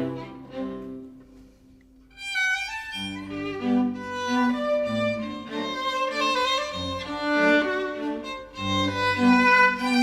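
Background music on bowed strings, violin over a lower cello-like line, playing sustained notes; it drops away briefly about a second in and resumes about two seconds in.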